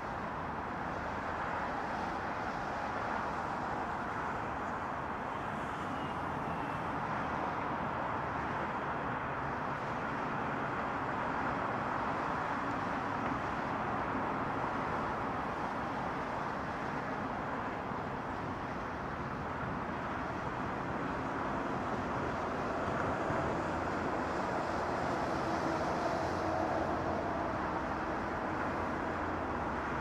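Steady road traffic noise from a multi-lane highway: a continuous rush of car tyres and engines, swelling slightly about three quarters of the way through.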